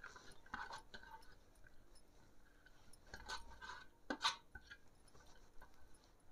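Grated pumpkin being scraped off a metal plate and dropping into a nonstick frying pan: faint, scattered scrapes and light clicks, the sharpest one about four seconds in.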